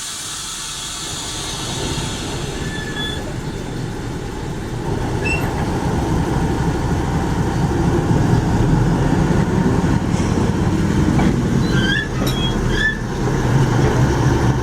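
Railway train running on the track, its low rumble growing louder from about five seconds in, with a few short wheel squeals, two of them close together near the end.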